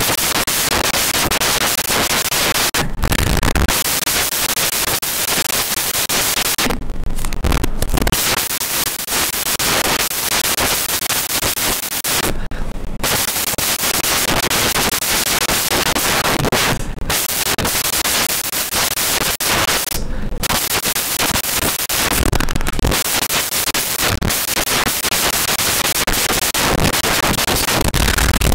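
Loud, steady static-like hiss with a few brief dropouts.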